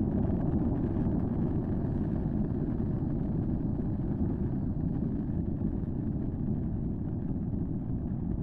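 Steady low rumble of an erupting volcanic fissure, its lava vents spattering, even in level with no distinct bangs.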